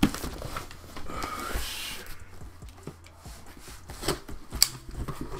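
A cardboard shipping box scraping and rustling for about two seconds as it is handled, then a box cutter slitting the packing tape, with two sharp ticks near the end.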